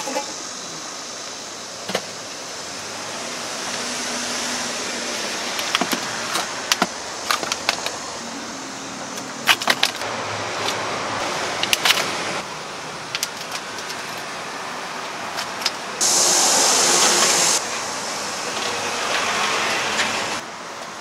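Sharp taps and clicks of a knife on a cutting board as fruit is cut, scattered over steady market background noise and busiest in the middle. Near the end comes a loud hiss lasting about a second and a half.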